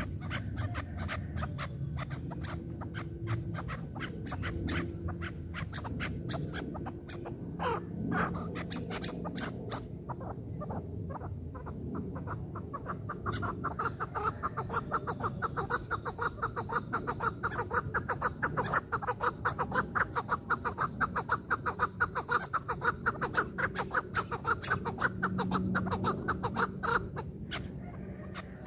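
Chukar partridges calling: long runs of rapid, evenly repeated short chuck notes, several a second, growing louder and denser about halfway through and stopping shortly before the end.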